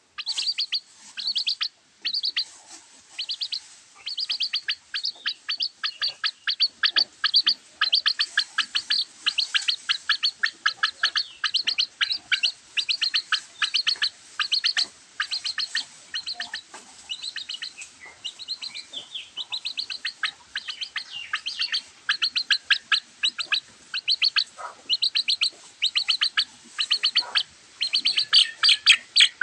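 Baby chicks peeping loudly and without pause, short high chirps coming several a second: the distress calls chicks make when they are cold.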